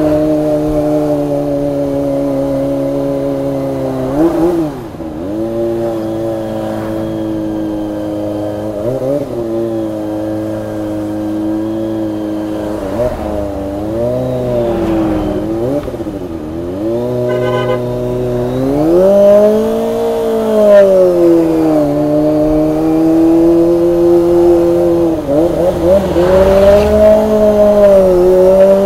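Kawasaki ZX-25R's 250 cc inline-four engine running at low revs in crawling traffic, the pitch dipping and rising again and again with small throttle openings, with a stronger rev rise a little past the middle and another near the end.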